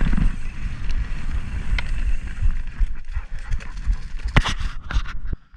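A 2023 Pivot Switchblade mountain bike being ridden on a trail: steady wind and tyre rumble with frequent knocks and rattles from the bike over rough ground. The noise briefly drops out near the end.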